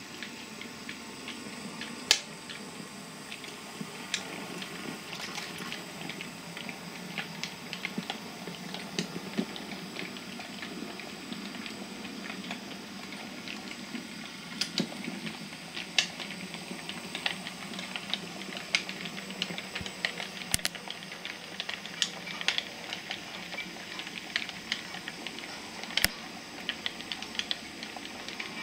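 Model railway train running on track: a steady running noise with many small, irregular clicks as the wheels pass over the rail joints and pointwork, and a few sharper clicks scattered through.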